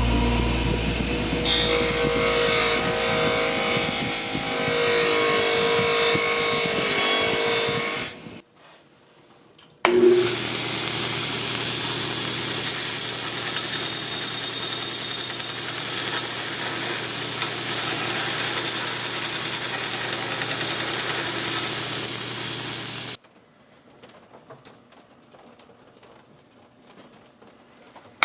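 Damascus knife blade being sanded and buffed. The first stretch is a rubbing, scraping sound with held tones over it. After a short break comes a steady machine hiss with a low motor hum, as on a power sander or buffing wheel, which cuts off suddenly; faint small clicks follow.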